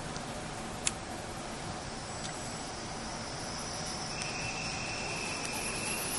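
Steady railway platform background noise beside blue sleeper-train carriages, with one sharp click about a second in and a thin high steady tone over the last two seconds.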